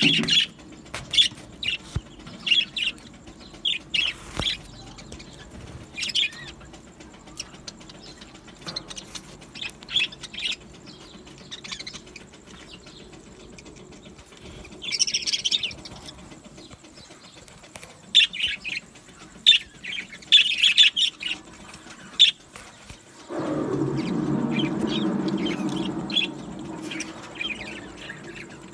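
Budgerigars chirping and warbling, short high chirps scattered throughout with a louder burst of calls about halfway through. Near the end a louder, low rushing noise lasts about three seconds.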